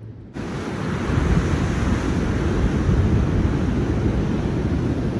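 Strong wind buffeting the microphone, a heavy uneven rumble with a steady hiss, mixed with ocean surf breaking on the rocks below; it starts abruptly a moment in.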